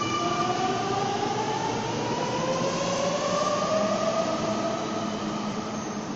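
Sydney Trains double-deck electric train pulling out of an underground station: a steady rumble of wheels on rails, with a motor whine that rises in pitch as the train speeds up. The sound echoes off the arched tunnel-station walls.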